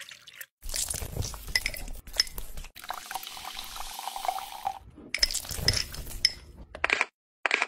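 Drinks poured into a clear bear-shaped drink bottle in several short, abruptly cut takes: liquid splashing in as it fills, a hissing pour with a slowly rising filling tone, then a metal stirrer clinking against the bottle in the second half.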